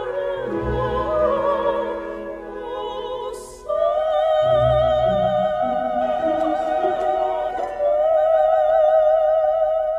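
Opera music on the soundtrack: a high singing voice holds long notes with a wide vibrato over low sustained accompaniment. The voice breaks off briefly just before the fourth second and again near the eighth second.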